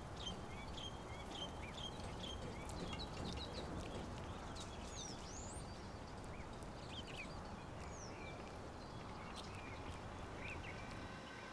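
Small birds chirping and calling in short, scattered notes over a steady outdoor background hiss.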